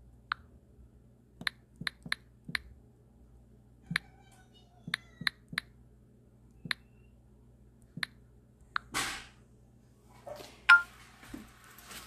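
About a dozen sharp, irregular clicks or taps, with a short rustling hiss about nine seconds in.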